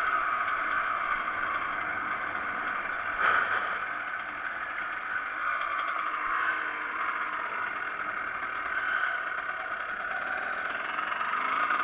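Kawasaki KX125's two-stroke single-cylinder engine running steadily at low revs as the bike is ridden slowly, with a single brief knock about three seconds in.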